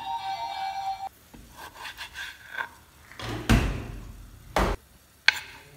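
Kitchen knife slicing raw pork loin on a plastic cutting board: scraping, rubbing strokes and two heavier thumps of the blade and board, then a sharp click near the end. Background music plays for about the first second, then stops.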